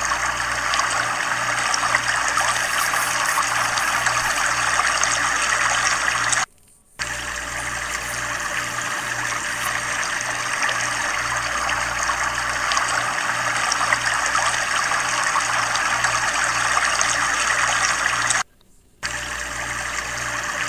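Fast-flowing flash-flood water rushing strongly, a steady rushing hiss of current. It drops out briefly twice, about a third of the way in and near the end.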